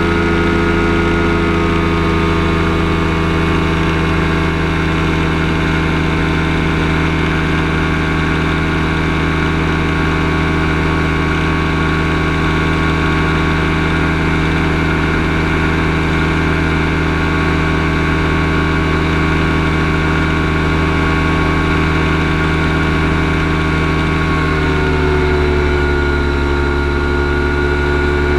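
Kolb Firestar II ultralight's two-stroke engine and pusher propeller running steadily in flight, heard from the cockpit. The engine note eases down slightly about a second in, and drops lower again about 25 seconds in.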